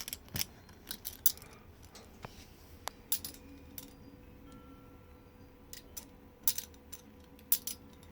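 Steel handcuffs being handled: scattered sharp metallic clicks and clinks of the cuffs and chain, in short clusters, over a faint steady hum.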